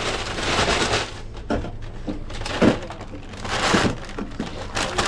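A brown paper takeout bag rustling and crinkling as gloved hands fold and handle it. There are several sharp knocks of drink cans set down on a stainless steel counter; the loudest is about two and a half seconds in.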